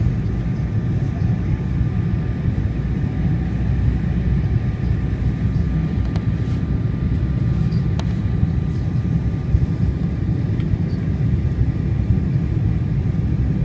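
Cabin noise inside an Embraer E190 airliner on final approach: a steady low rumble of the engines and airflow, with a faint steady hum above it.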